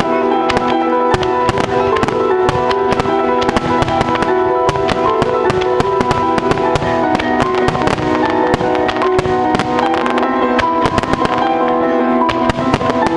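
Starmine fireworks display: a rapid, dense run of firework bursts and crackles, several a second, over music with sustained melodic tones.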